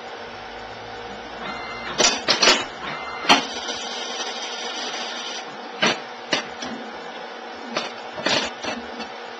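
Laboratory liquid-handling robotics (plate stacker and pipettor mechanism) at work. A motor whirs for about four seconds, with sharp mechanical clicks and clunks scattered through it, over a steady fan hum.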